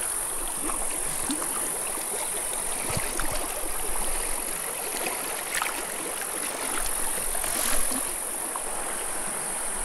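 Small, shallow creek flowing over rocks close by: a steady rush of water, with a few faint knocks.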